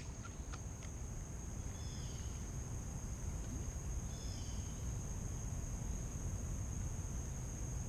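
Steady high-pitched insect chorus over a low rumble of outdoor noise, with a few light clicks in the first second and two short high chirps around two and four seconds in.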